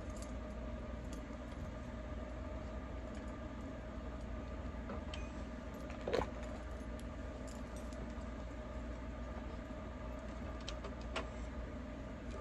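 Steady low room hum with a few faint steady tones, and a handful of soft short clicks, the clearest about six seconds in and two more near the end.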